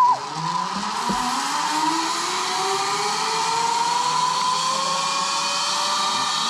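Zipline trolley pulleys running along a steel cable: a steady rushing whine whose pitch slowly rises as the rider picks up speed.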